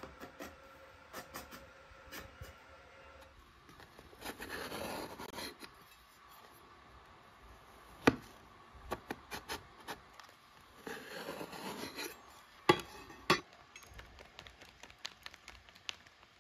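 Chef's knife cutting a peeled eggplant lengthwise into strips on a tray: two longer scraping slicing strokes, and several sharp taps and knocks of the blade against the tray.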